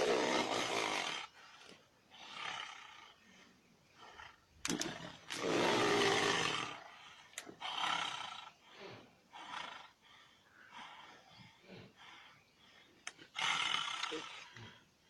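A large predatory animal roaring and snarling in loud, rough bursts. The longest comes about five seconds in and lasts around two seconds, with shorter snarls between.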